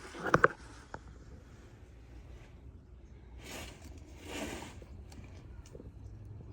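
Camera handling noise: two sharp knocks just after the start and a click a second in, then two soft rustles a few seconds later, over a faint low hum.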